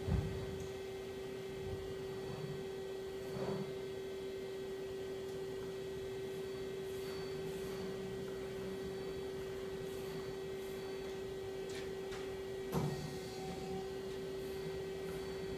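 Daewoo Puma 12L-B CNC lathe powered up and running, giving a steady, even hum on a single tone. A few short clicks or knocks break in: just after the start, about three and a half seconds in, and again late on.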